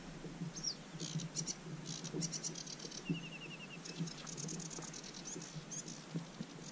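Small songbirds singing: quick high trills and chirps with a few short falling whistles, and a brief run of evenly spaced notes about three seconds in.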